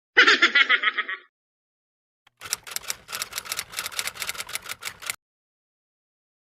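Two short sound-effect clips separated by silence: first a brief, rapidly pulsing trill lasting about a second, then about three seconds of quick sharp clicks, roughly seven a second, like typewriter keys.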